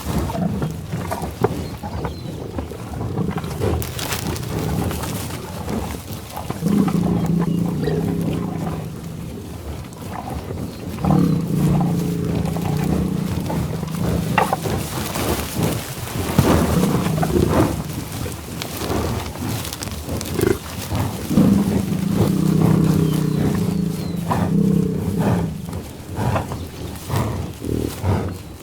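Buffalo bellowing loudly in long, low moos: three drawn-out calls of about three to four seconds each, with shorter grunts and breathy sounds between them.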